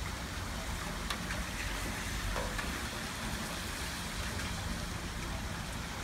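Steady rain falling, with a low rumble underneath.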